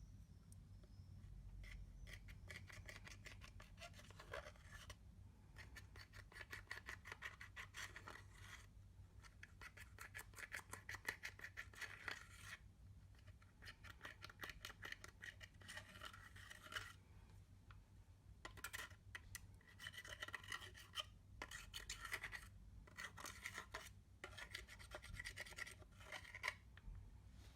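Slime being worked and mixed by hand: bursts of rapid, fine sticky clicks and crackles lasting a few seconds each, with short pauses between.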